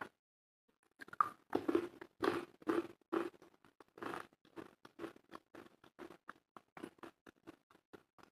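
A person chewing crunchy food close to the microphone. The bites and crunches come thick and loud about one to four seconds in, then settle into a steady run of smaller crunching chews, about three a second.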